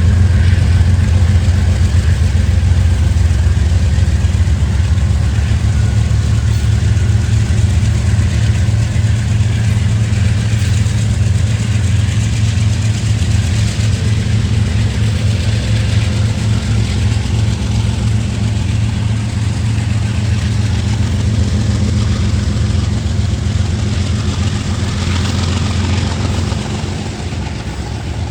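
A large engine idling steadily: a deep, even hum with a constant hiss over it, easing slightly near the end.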